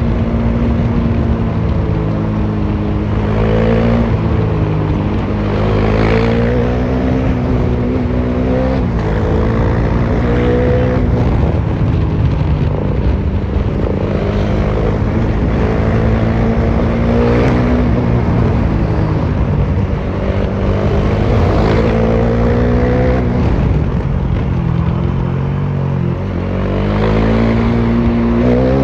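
Bajaj Dominar 400's single-cylinder engine running through an exhaust with the muffler removed, heard from the rider's seat on the highway. The revs climb and fall back several times, as with repeated acceleration and gear changes, between stretches of steady cruising.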